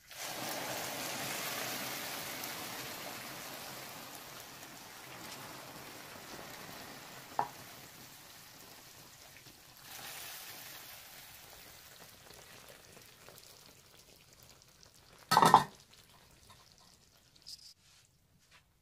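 Syrup ladled over hot baked baklava, sizzling on the pastry; the hiss fades slowly, then starts again about ten seconds in with a second ladleful. A small click partway through and a loud sharp knock near the end.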